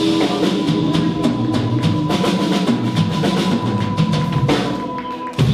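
Live blues-rock band closing out a song: the drum kit plays rolls and fills on bass drum and snare under a steady held high note that stops about four and a half seconds in, then a final loud hit near the end.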